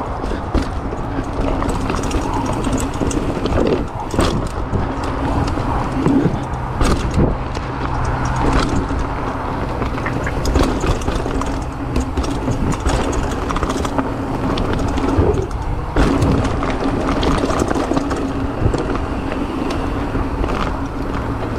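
Mountain bike descending a rocky dirt trail: tyres rolling and crunching over dirt and stones under a constant rush of noise, with frequent sharp knocks and rattles as the bike hits rocks and roots.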